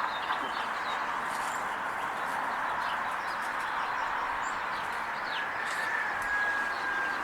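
Small birds chirping now and then over a steady outdoor background hiss. A thin, steady whistle-like tone comes in about five seconds in.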